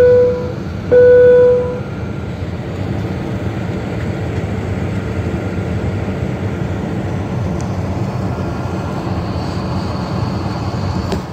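Two loud chime tones of the same pitch sound in the first second and a half, each about half a second long. They are typical of an airliner's cabin chime. After them comes the steady low rumble of the jet engines and cabin as the airliner taxis.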